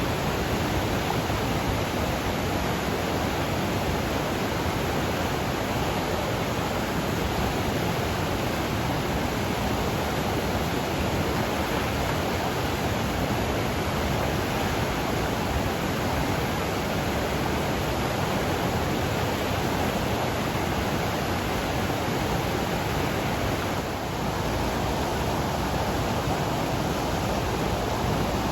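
Flooded mountain river, swollen with heavy runoff, rushing in a steady, dense wash of water noise.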